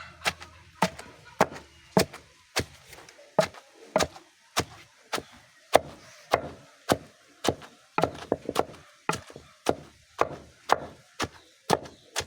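Pestle pounding chopped plant stems in a small mortar, in steady strokes of about two a second.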